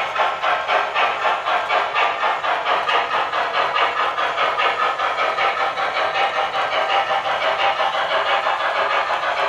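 Onboard sound system of an MTH HO-scale GS4 4-8-4 steam locomotive playing its exhaust chuffs through the model's small speaker as the engine accelerates: the chuffs start at about four a second and quicken until they run together. The sound plays smoothly with no stuttering or restarting, a sign that the locomotive is getting steady power.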